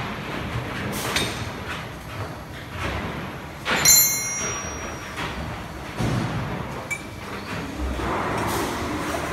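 Factory machinery noise with scattered metal clanks and knocks, the loudest a sharp metallic clang with brief ringing a little under four seconds in.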